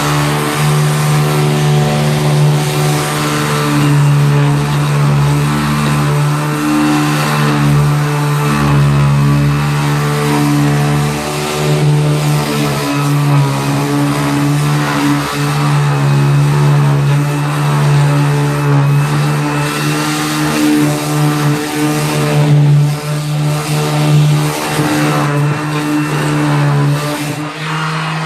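Ryobi 18-volt cordless 5-inch random orbit sander running steadily against a wall, sanding off old trim glue, a loud even hum that swells a little as it is pressed and moved.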